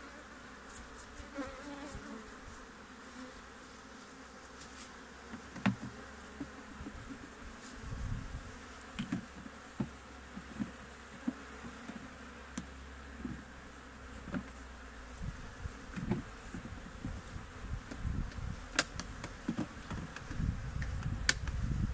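Honeybees buzzing as a steady hum over an opened hive during a honey harvest, with scattered light clicks and knocks.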